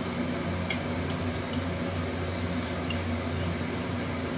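Bay leaves and cardamom frying in hot mustard oil in an aluminium wok: sparse faint crackles and pops over a steady low hum, with one sharper click about three-quarters of a second in.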